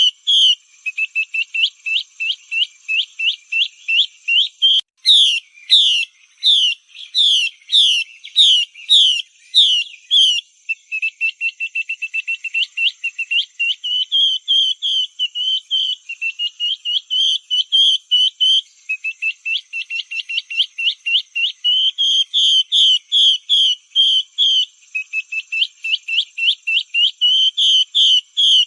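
Female Chinese hwamei calling, a recording played as a lure call. Rapid runs of short downward-sweeping notes, with a louder, slower run of wider sweeping notes from about five to ten seconds in.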